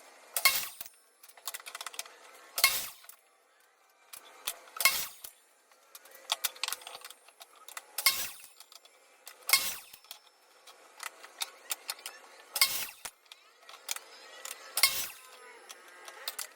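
A series of sharp knocks and clinks, one about every two seconds, with faint handling noise between them.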